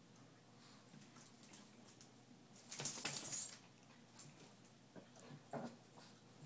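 Two small dogs playing: a short scuffle about three seconds in, with quieter brief dog sounds before and after.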